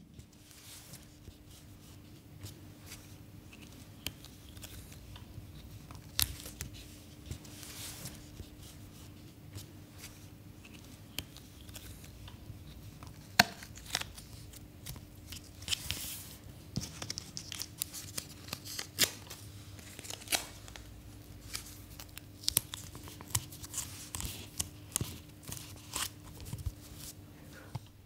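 Adhesive tape being torn off in strips and pressed around bare toes: short ripping sounds and sharp clicks at irregular intervals, coming more often in the second half.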